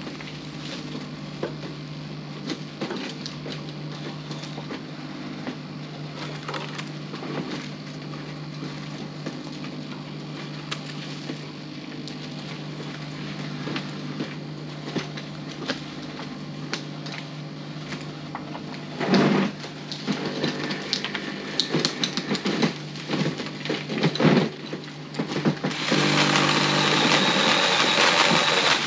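Small Ryobi saw cutting tree branches. Under a steady hum, a run of cracks and snaps of wood starts about two-thirds of the way in, and a loud stretch of sawing comes near the end.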